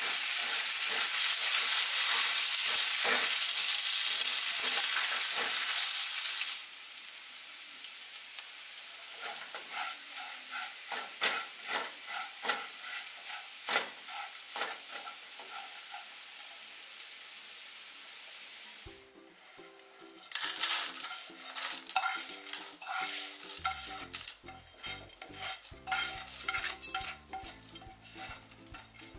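Long-grain rice sizzling in hot oil with chopped garlic and ginger in a nonstick skillet, stirred and scraped with a spatula. The sizzle drops sharply about a third of the way in and stays quieter. Near two-thirds of the way through, it gives way to a spatula scraping the rice out of the pan into a pot, with grains clicking, and soft music coming in.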